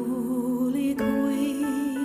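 A woman singing a slow Marian hymn with vibrato over soft, sustained keyboard accompaniment.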